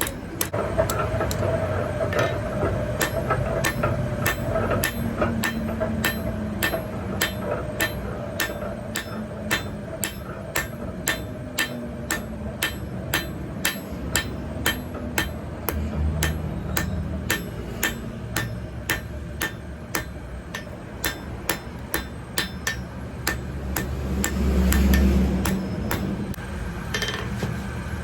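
Blacksmith's hammer striking metal on an anvil in a steady rhythm of about two blows a second. A low rumble swells briefly near the end.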